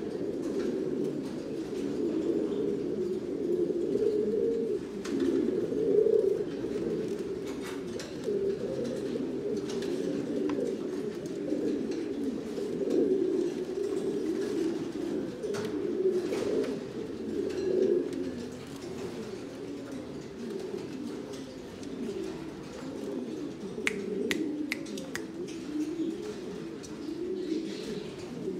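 Buchón Gaditano pouter pigeons cooing, several birds overlapping so that the low, rolling coos never break. A few short clicks come through near the end.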